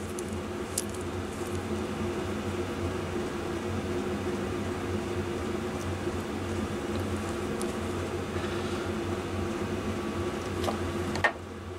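Steady hum of a small fan or motor. There is a light click about a second in, and a sharp click near the end, after which the hum drops away.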